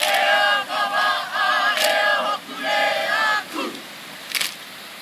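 A group of people chanting loudly in unison in several short, strong phrases, ending in a call that slides down in pitch. Two sharp cracks cut through, one in the middle of the chant and one near the end.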